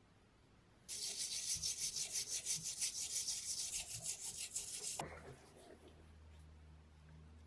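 Toothbrush scrubbing the wet metal end cap of a 1950s Black & Decker electric jack hammer's motor housing, in brisk back-and-forth strokes about four a second. It starts about a second in and stops about five seconds in.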